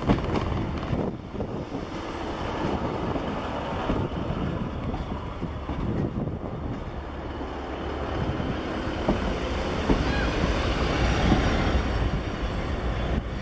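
Northern Class 150 Sprinter diesel multiple units pulling past along the platform. The underfloor diesel engines run steadily as the carriages roll by, and the wheels click over rail joints, growing a little louder in the second half.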